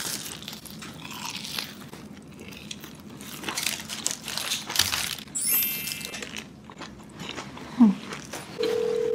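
Loud, crisp crunching bites into a giant breaded, deep-fried ring, with close-up chewing. About five and a half seconds in there is a short bright chime sound effect, and near the end a steady single-pitch beep begins.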